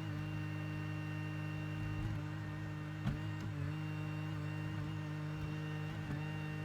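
2021 Bobcat E42 mini excavator's diesel engine running steadily at working speed, its pitch dipping slightly as the hydraulics take load. A single sharp knock about three seconds in.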